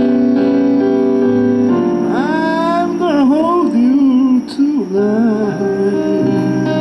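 Live band music: sustained keyboard chords and a bass line under a lead melody that bends and glides in pitch.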